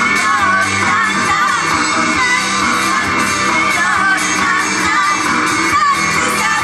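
Female idol group singing live over loud pop backing music.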